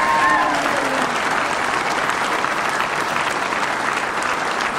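Large crowd applauding, a dense steady clapping with a voice heard briefly at the start.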